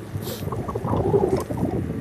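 Wind buffeting the microphone of a camera riding on a moving bicycle: an uneven low rumble that grows louder near the end, with a brief hiss near the start.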